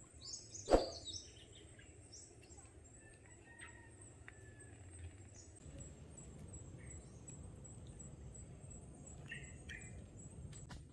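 Wild birds give scattered short, high chirps over faint jungle ambience, with a thin steady high whine in the background. A single sharp click comes about a second in.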